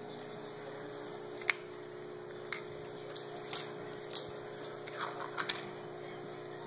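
Scattered light clicks and taps as young pets chew and tug at a rubber chew toy on a tile floor, over a steady background hum.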